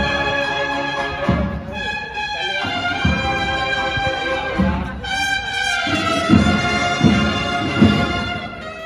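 Cornet and drum band playing a slow processional march: long held brass notes over spaced drum strokes.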